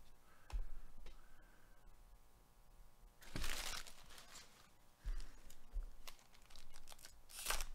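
Foil wrappers of 2021 Panini Mosaic baseball card packs crinkling and being torn open, with a loud rustle about three seconds in and another near the end.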